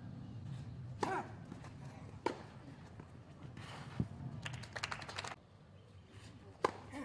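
Scattered hand claps from a small tennis crowd, a short patter about four and a half seconds in, with a few sharp isolated taps before and after over a low open-air background.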